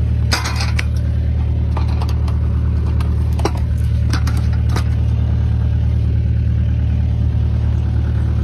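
Excavator's diesel engine running steadily, with a few short clanks and rattles about half a second in and again around three to five seconds in.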